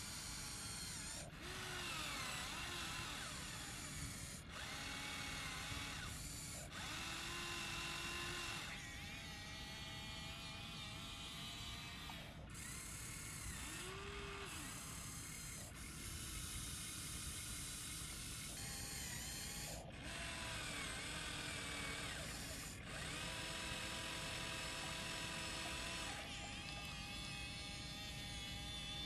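Small electric motors of a Huina 1593 remote-control excavator whining as it digs and swings its bucket, the pitch rising and falling as each motion starts and stops. The sound jumps abruptly every few seconds.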